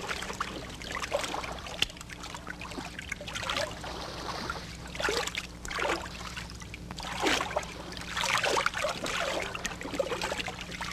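Paddles dipping and splashing in shallow water as a small outrigger canoe is paddled, each stroke a short swish about every second or so, with water trickling off the blades, over a low steady hum.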